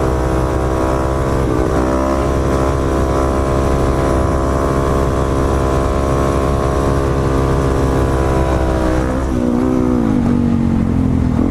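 Dirt bike engine held at steady high revs through a long stand-up wheelie, with a brief dip in revs about two seconds in. Near the end the revs fall away to a lower, steady pitch as the throttle is eased.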